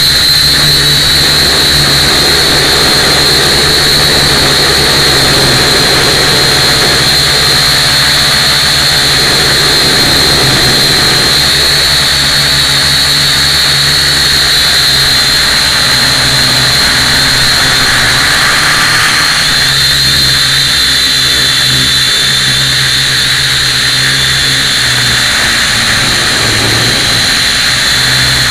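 Syma X1 quadcopter's four motors and propellers running in flight, a loud, steady, high-pitched whine heard from on board the craft.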